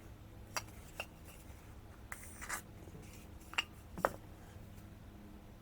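Scattered small clicks and a brief scrape of a tight cap being twisted and worked on a can, over a low steady hum.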